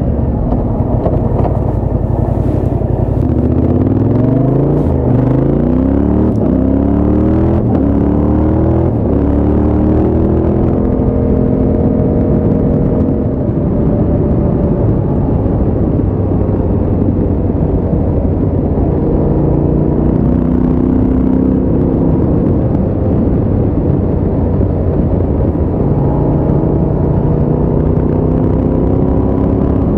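2020 Yamaha Ténéré 700's parallel-twin engine running through a Scorpion exhaust with the baffle removed, heard from the rider's seat. About three seconds in the revs climb as the bike accelerates, rising for several seconds, and then it settles into steady cruising with slight rises and falls in engine speed.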